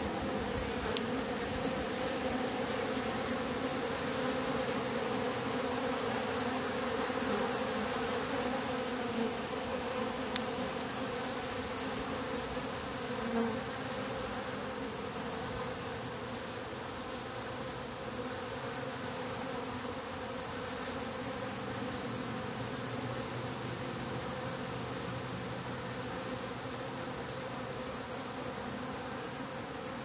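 Honey bees massed on the bottom board of a top bar hive, buzzing as a steady, unbroken hum.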